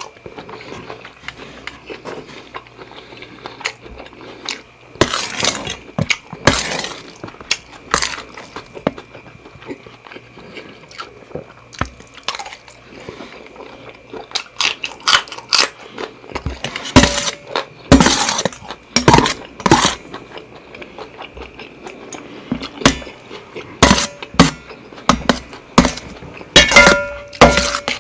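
Close-miked eating of seafood fried rice with shrimp and squid: irregular chewing and biting sounds with spoon clinks against the plate, busier and louder in the second half.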